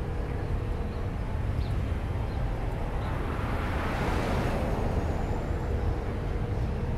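Steady low rumble of wind and road noise at a camera mounted on the outside of a moving truck. About four seconds in, a car passes close alongside, its noise swelling and then fading.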